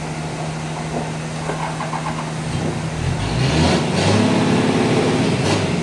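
An engine running steadily, growing louder with a fuller tone about three seconds in, with a few short knocks over it.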